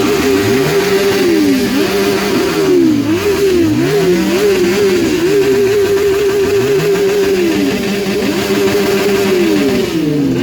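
Superbike engine revved hard over and over: quick blips that rise and fall in pitch, and longer stretches held at a steady high pitch for a couple of seconds at a time.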